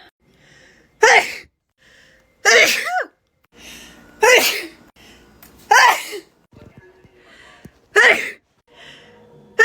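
Sneezes in quick succession, about six of them, one every one and a half to two seconds, each preceded by a quieter in-breath.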